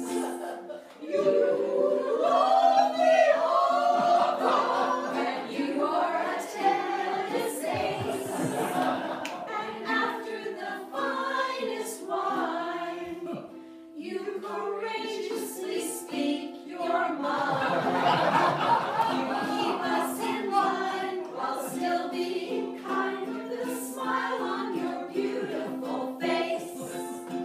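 Small women's chorus singing a song together, with held notes and a brief pause about halfway through.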